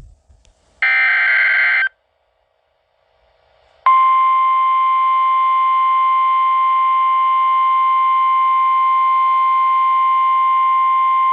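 A NOAA Weather Radio emergency alert starting. About a second in comes a one-second burst of the warbling SAME digital header data. About two seconds later the steady, single-pitch 1050 Hz Warning Alarm Tone begins and holds. This tone signals that a warning, here a severe thunderstorm warning, is about to be read.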